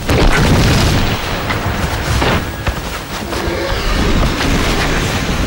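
Two bull African elephants fighting: a loud, dense low rumble of heavy bodies colliding and shoving, with heavy thuds as heads and tusks clash, a sharp one about two seconds in.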